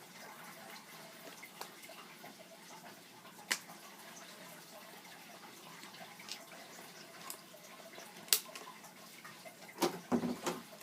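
Quiet room noise with a few isolated sharp clicks, and a short vocal sound near the end.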